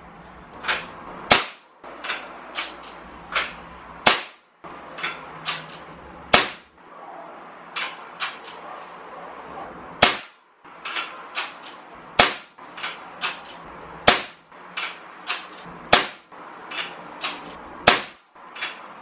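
Weihrauch HW95 break-barrel spring-piston air rifle in 5.5 mm (.22) firing a string of shots: sharp cracks, the loudest about every two seconds, with lighter clicks between.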